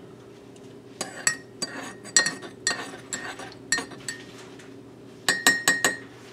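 A metal spoon stirring creamer into coffee in a ceramic mug, clinking against the sides. Near the end come four quick, sharp clinks in a row.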